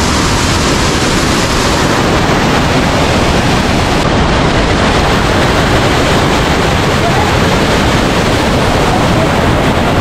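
Waterfall rushing: a loud, steady, even noise of falling water.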